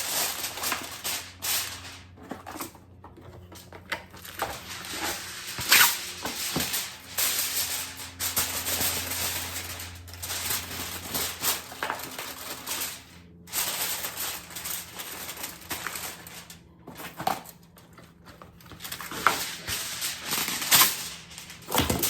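Aluminium foil being crinkled and pressed down to cover a dish, in irregular crackling rustles, with a faint low steady hum underneath for part of the time.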